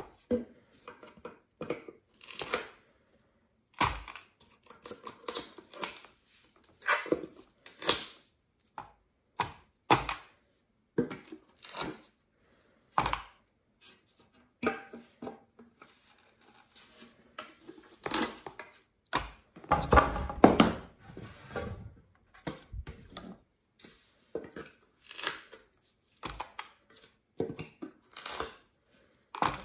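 Nails being pulled out of cedar boards with pliers: a long series of short, sudden pulls at irregular intervals, each steel nail drawing out of the wood. The loudest pulls come about two-thirds of the way through.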